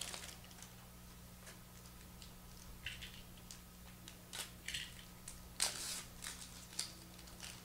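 Foil trading-card pack being slit open with a small plastic opener and the cards slid out: faint crinkles, rustles and small clicks of the wrapper, loudest about two-thirds of the way through. A steady low electrical hum underneath.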